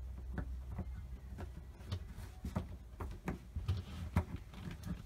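Faint, irregular clicks and taps of hands working snap-together vinyl plank flooring at its edge, over a low steady hum.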